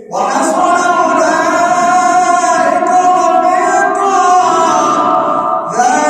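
A male Quran reciter chants a verse in the melodic tajweed style as one long, drawn-out phrase with gliding pitch. A new phrase begins just before the end.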